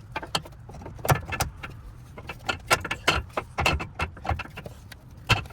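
Metal hand tools and suspension parts clinking and knocking in an irregular series of sharp clicks, as a sway bar link is worked on.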